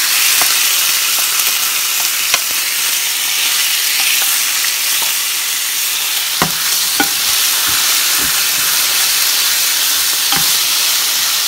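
Diced chicken breast searing in hot oil in a frying pan, with a steady sizzle. It is stirred with a wooden spatula that knocks against the pan now and then, most sharply a little past the middle.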